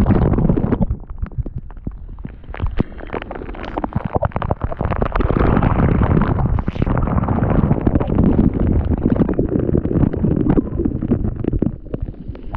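Waterfall spray and wind buffeting the phone's microphone: a loud, steady low rumble with many crackling hits of water on the mic.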